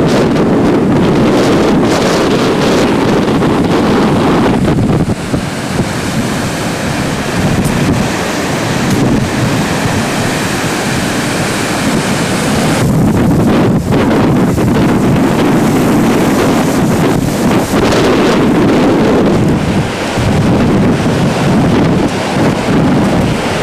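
Niagara Falls' water plunging in a loud, steady roar, with wind buffeting the analog camcorder's microphone.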